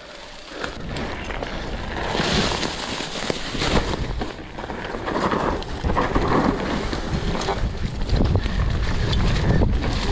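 Mountain bike riding down a dirt trail, with wind buffeting the microphone over the rumble of the tyres and many short knocks and rattles from the bike over bumps.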